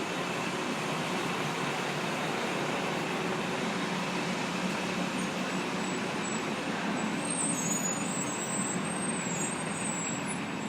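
Steady city street traffic noise, with trucks and buses running. A low steady hum lies under it, and faint high-pitched squeals come in the second half.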